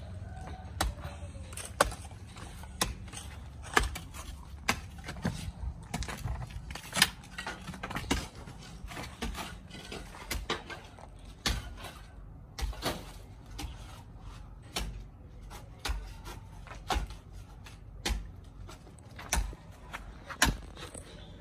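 A mattock and a hoe striking packed earth and broken brick rubble in hand digging: a series of sharp knocks, about one a second.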